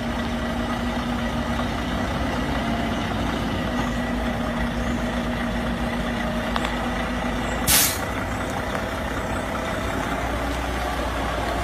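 A diesel semi-truck's engine idles steadily. About eight seconds in there is one short, loud hiss of air, typical of an air brake release.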